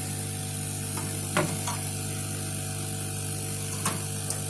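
Hot-air rework blower running with a steady hum and hiss, with a few light clicks over it: about a second and a half in, twice near the end.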